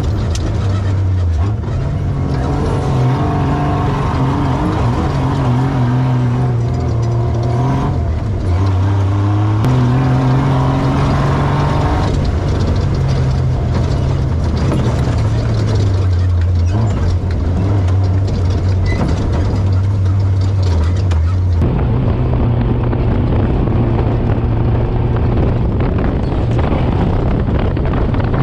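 An off-road race vehicle's engine running hard, its revs rising and falling in steps as it drives the course. The sound changes abruptly about 22 seconds in.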